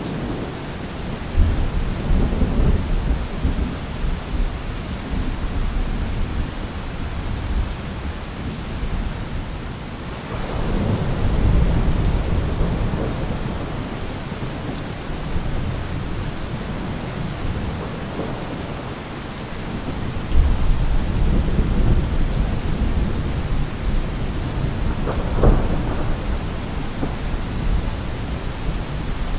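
Thunderstorm: steady rain falling, with deep rolls of thunder that build and fade about a second in, around ten seconds in and around twenty seconds in, and a sharper thunder crack near the end.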